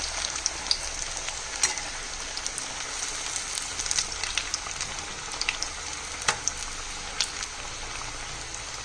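Dal vadas deep-frying in hot oil: a steady sizzle with scattered sharp crackles and pops, a few of them louder.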